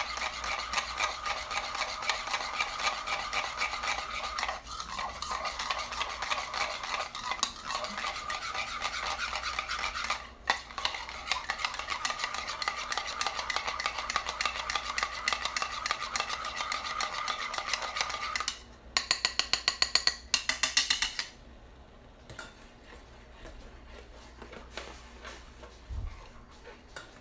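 A utensil beating a raw egg in a bowl: fast, continuous scraping and clinking strokes against the bowl, with two brief pauses. About two-thirds through comes a short run of louder, sharper strokes, then the sound drops to quieter handling with a single low thump near the end.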